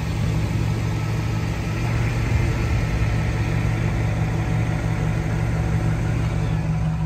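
Ford 6.2-litre gasoline V8 of a 2014 F-350 idling steadily, heard from under the truck by the exhaust; very quiet running, the sign of a healthy engine.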